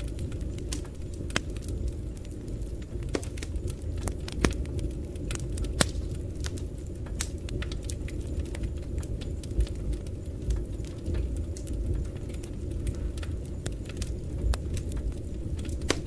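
Wood fire burning in a stove's firebox: a steady low rumble with irregular sharp crackles and pops from the logs.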